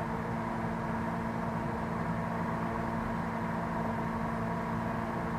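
A steady machine hum made of several held tones over a low rumble, with no change through the stretch.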